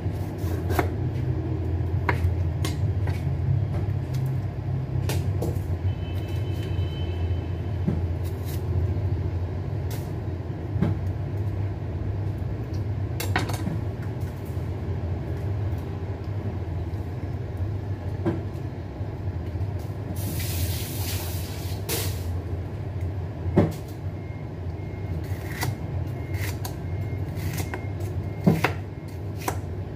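Scattered knocks of a chef's knife on a wooden cutting board while slicing a bell pepper, over a steady low hum. A short hiss comes about two-thirds of the way through.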